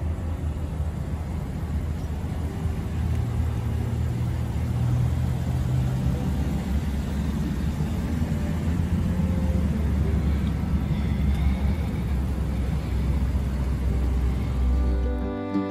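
A vehicle engine idling with a steady low rumble. It cuts off sharply near the end.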